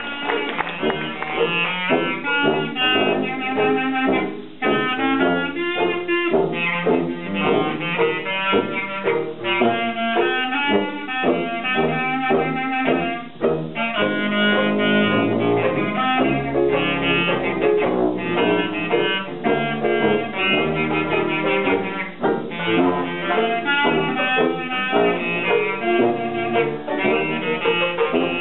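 Small hot jazz band playing live, with the clarinet carrying the lead line over piano, banjo and sousaphone while the cornet and trombone rest.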